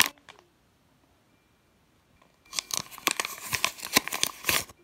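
Sheet of paper being handled and crinkled by hand: a short crinkle right at the start, a quiet stretch, then about two seconds of steady crinkling and crackling in the second half.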